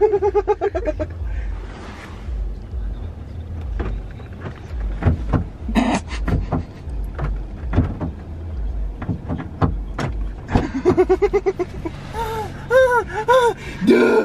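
A man laughing in short bursts at a car's window, heard from inside the car, over the low steady hum of the idling engine, with scattered clicks and knocks in between.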